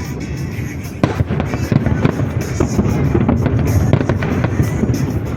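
Fireworks going off: a rapid run of bangs and crackles that starts about a second in, over a constant low rumble.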